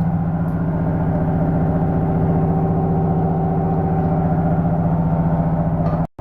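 A machine's motor running steadily with a low, even hum. It drops out abruptly for a moment near the end.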